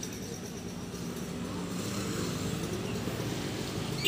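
A steady low rumble of background noise, with no distinct event.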